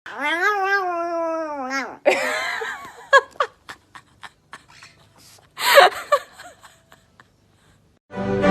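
A pet's long, wavering cry lasting about two seconds, followed by laughter and a few sharp knocks; music starts right at the end.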